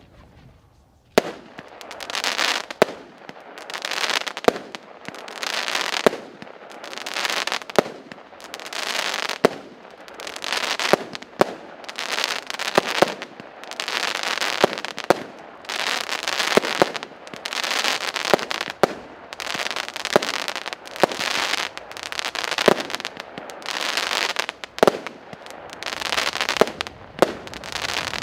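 A 36-shot, 0.8-inch firework cake firing in sequence, starting about a second in. It gives a sharp launch thump roughly every second, and each thump is followed by about a second of noise from the shell bursting overhead.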